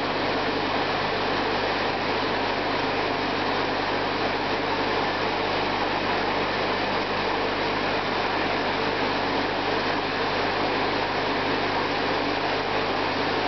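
Aquarium filtration equipment running: a steady rushing of water and air with a low constant electric hum underneath.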